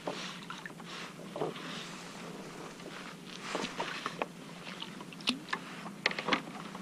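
Light clicks and knocks of a fishing rod and sabiki rig being handled against a plastic kayak, the sharpest about five and six seconds in, with small splashes of water where the line enters.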